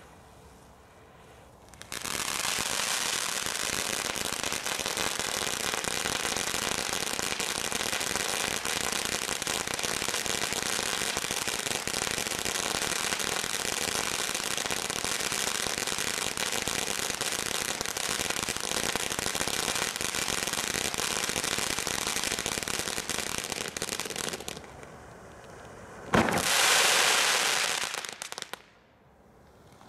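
Bright Star firework fountain spraying sparks: a steady hissing rush with fine crackle starts about two seconds in, runs for about twenty-two seconds and stops. Near the end another firework goes off with a sharp bang and a louder hiss of about two seconds.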